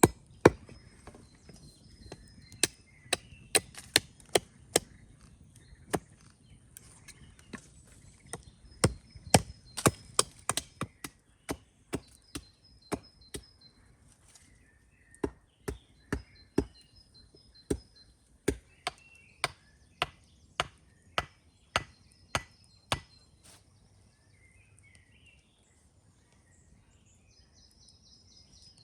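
Wood being chopped: sharp strikes, about two a second, in runs with short pauses between, stopping several seconds before the end.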